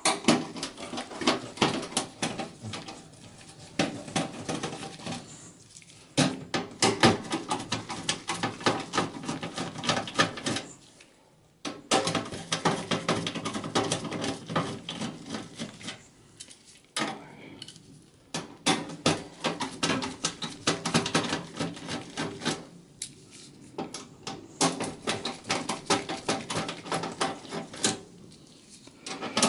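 Phillips screwdriver backing out motherboard mounting screws in a steel computer case: quick runs of metallic clicking and scraping, in several spells with short pauses between them.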